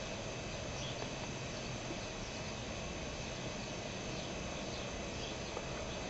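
Steady outdoor background noise: an even hiss with faint, constant high-pitched tones and a few faint short chirps. No dove calls.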